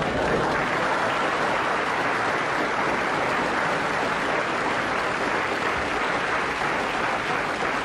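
Audience applause: a steady, dense patter of many hands clapping.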